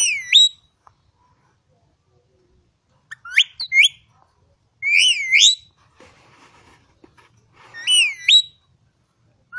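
Green Indian ringneck parakeet whistling in short phrases of rising and falling notes, four bursts a couple of seconds apart.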